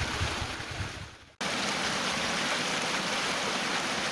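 Shallow woodland stream flowing, a steady rush of water with some low rumbling in the first second. It fades away a little over a second in and then comes straight back in full.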